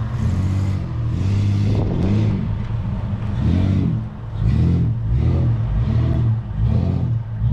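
Toyota Land Cruiser 80-series engine revving up and down again and again, about once a second, as the truck is driven through soft sand.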